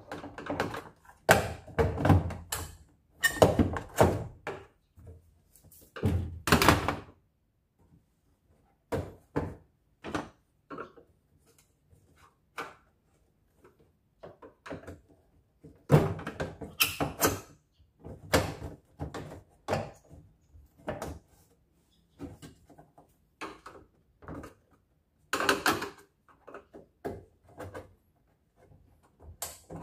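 Screwdriver prying at the plastic top panel of a Panasonic top-loading washing machine: irregular knocks, clicks and thunks of hard plastic in bursts as the panel is worked against the hooks that hold it.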